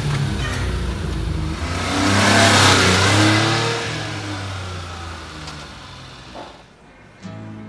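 1994 Suzuki Carry kei truck's small three-cylinder engine as it drives past: it grows louder, peaks about two to three seconds in, then fades steadily as the truck pulls away. Guitar music comes in near the end.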